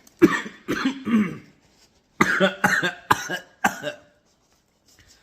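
A man coughing hard in two fits, three coughs and then a quicker run of about five, choking on a bite of hot pizza crust.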